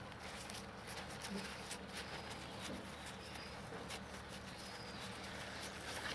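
Paper towel crinkling faintly as a small carburetor part is wiped clean, heard as scattered soft crackles over a steady background hiss.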